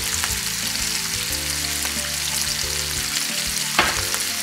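Onion, panceta, serrano ham and piquillo pepper sizzling steadily in olive oil in a frying pan over low heat, with one short sharp click near the end.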